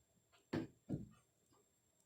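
Two dull knocks about a third of a second apart, with lighter clicks just before and after, as of parts or tools being handled at a workbench.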